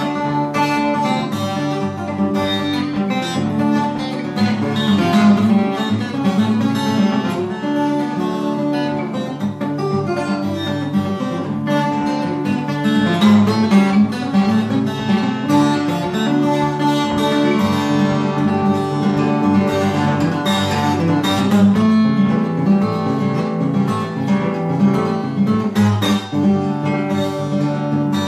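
Twelve-string acoustic guitar playing an instrumental tune without a break, with a steady bass line under the melody and the twang of the doubled strings.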